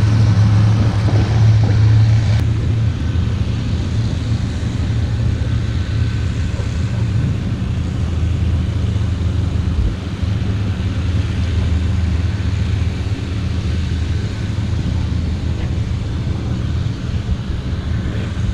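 Car engine idling, a steady low rumble with little change in pitch.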